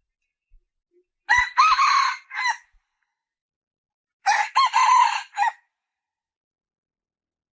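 Red junglefowl hen calling: two multi-note calls about three seconds apart, each lasting just over a second.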